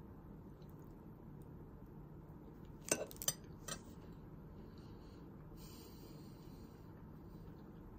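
A metal fork clinking against a plate three times in quick succession about three seconds in, over a low steady hum.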